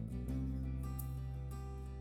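Background music led by guitar, moving through steady chords.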